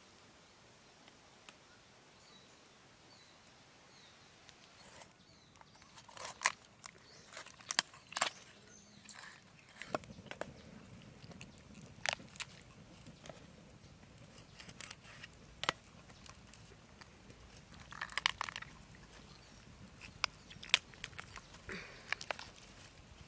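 Raw plucked duck carcass being pulled apart by hand, giving scattered sharp crunching and cracking sounds, some in quick clusters. The sounds begin about five seconds in.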